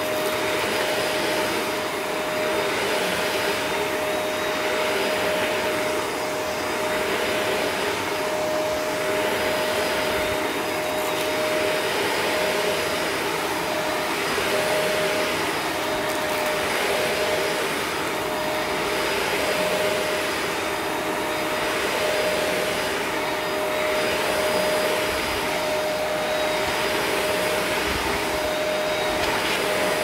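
Vacuum cleaner running steadily on carpet: a constant motor whine under a rushing hiss that swells and eases about every two seconds as the vacuum is pushed back and forth.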